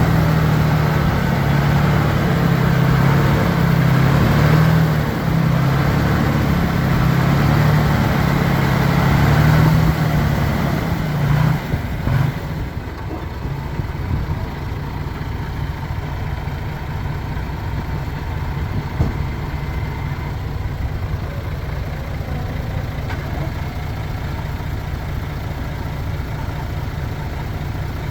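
Diesel engine of a heavy earthmoving machine running hard, then dropping to a steady idle about twelve seconds in.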